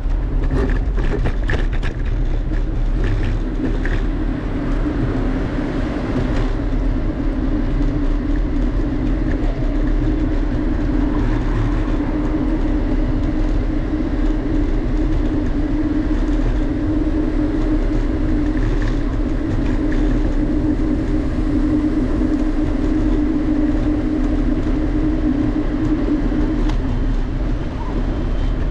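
Vehicle running: a steady rumble with a droning hum that sets in about six seconds in and fades out near the end.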